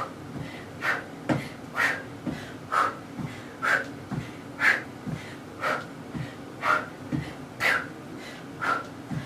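A woman breathing hard during a kicking exercise, with a sharp forceful exhale about once a second, and soft low thuds between the breaths.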